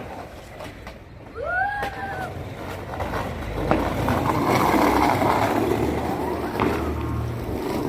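Firecrackers going off: a few sharp pops, then a loud rushing, crackling noise that swells from about three seconds in.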